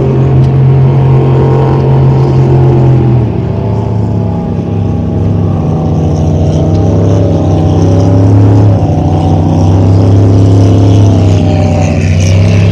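Motorboat engine running under way, heard loud from on board; its pitch and loudness drop about three seconds in, then hold steady.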